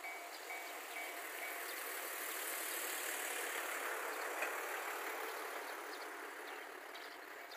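A train passing along the line at a distance, its running noise swelling for a few seconds and then fading. A level-crossing warning bell rings in quick repeated chimes for the first second or so, then is drowned out by the train.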